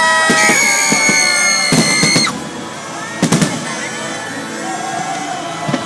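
Fireworks shells bursting with sharp bangs, a cluster about two seconds in and another just after three seconds, over music with long held notes that is loudest at first and drops after about two seconds.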